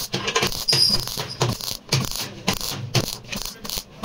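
MIG welder arc crackling in short, uneven bursts as tack welds are laid along a seam in a car door's sheet steel.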